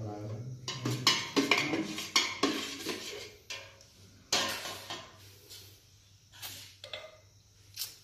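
Metal kulfi mould knocking and clinking against a steel bucket as it is lifted out of the water and handled. There are several sharp metallic knocks in the first three seconds, the loudest about four seconds in, then a few fainter clinks.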